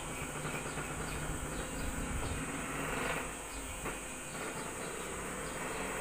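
Electric hair clippers running steadily during a haircut.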